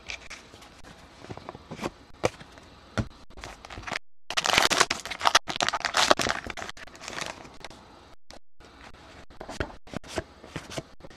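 Wrapper of a trading card pack being torn open and crinkled, a crackly tear of about three seconds starting about four seconds in, with scattered light taps and clicks of packs and cards being handled before and after.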